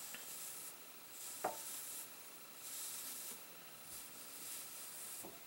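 Soft-bristle hairbrush swishing across oiled hair at the hairline in several slow strokes, a faint hiss that rises and fades with each pass. A small click about one and a half seconds in.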